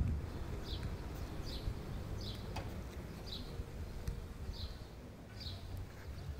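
A bird calling over and over, a short falling chirp about once a second, over a low rumble of wind on the microphone.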